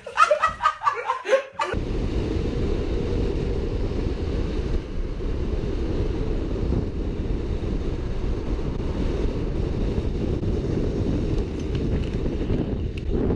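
Young men laughing for the first second and a half, then steady low wind buffeting on the microphone of a camera speeding down a road with downhill skateboarders starts suddenly.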